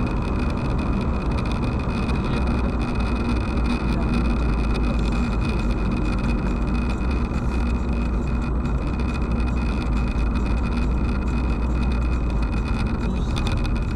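Steady road and engine noise heard from inside a moving car's cabin, with no change over the whole stretch.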